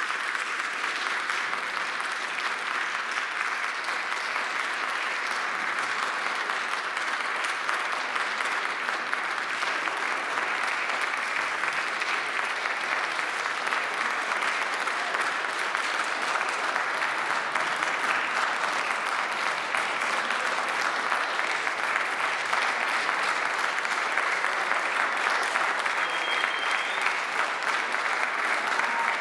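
Audience applauding: steady, dense clapping from a full room that grows a little louder in the second half.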